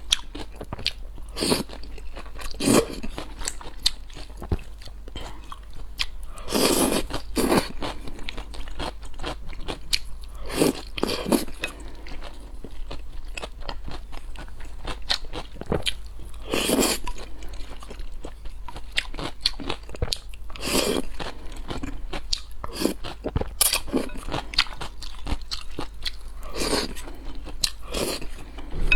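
Close-miked eating: crunchy bites and chewing at an irregular pace, with longer bursts every few seconds.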